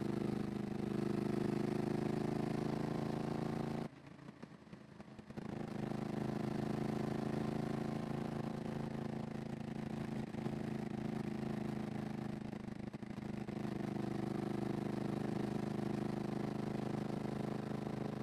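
Yamaha MT-07's parallel-twin engine running steadily through an aftermarket IXIL exhaust. The sound drops away suddenly about four seconds in and returns about a second and a half later.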